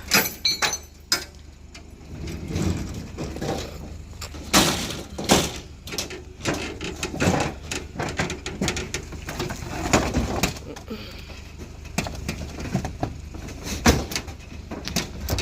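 Irregular knocks and clanks of scrap metal being handled and loaded.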